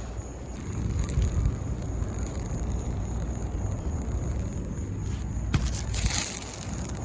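Steady low rumble with rustling and scraping, louder about a second in and again near six seconds, and one sharp click just before that.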